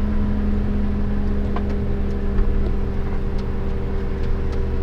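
Tractor engine running at a steady speed, a low drone with a steady whine over it.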